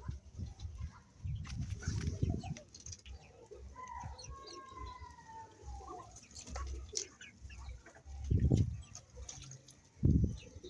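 Chickens in a farmyard, with a rooster crowing about four seconds in: one call of about two seconds that falls in pitch at the end. Two low, louder sounds come near the end.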